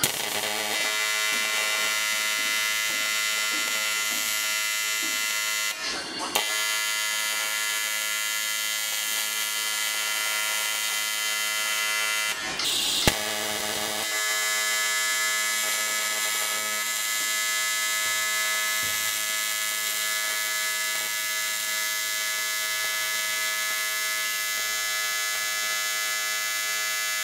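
Electric welding arc buzzing steadily as a crack in an aluminium engine oil pan is welded, stopping briefly twice when the arc is broken and struck again.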